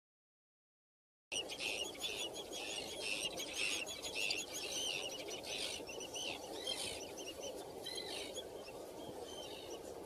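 Birds calling in quick, overlapping high chirps over a steady low background hiss, starting suddenly about a second in after silence; the calls are busiest at first and thin out toward the end.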